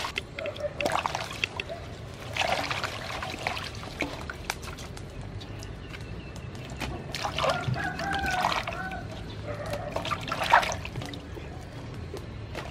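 Water poured from a bowl into a large aluminium basin, then splashing and trickling in several short bursts as lemongrass stalks, chilies and basil are rinsed by hand.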